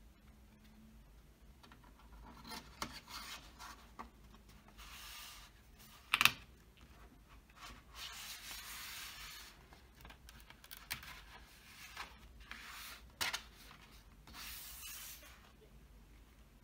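Cardboard DVD fold-out packaging and a disc being handled: card and paper sliding and rubbing in several stretches, with a few sharp clicks. The loudest click comes about six seconds in.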